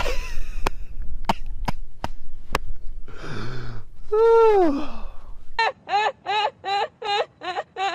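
Low wind rumble with a few sharp clicks and a short falling vocal sound, then, after a cut, a woman laughing in quick rhythmic 'ha-ha-ha' bursts, about three a second.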